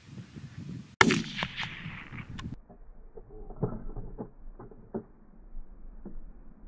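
A single rifle shot about a second in, its report echoing away over about a second and a half. A few faint knocks follow.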